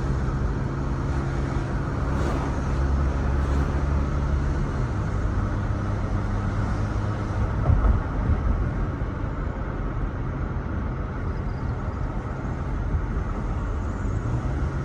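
Car driving, heard from the cabin: a steady road and engine rumble whose hum drops in pitch about five seconds in and rises again near the end, with a brief knock a little past halfway.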